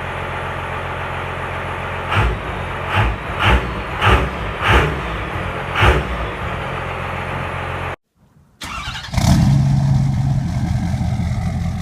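A 5.9-litre 12-valve Cummins inline-six diesel struggling through a hard cold start: the engine runs unevenly with six loud irregular bursts. After a cut it runs at a loud, steady, low drone.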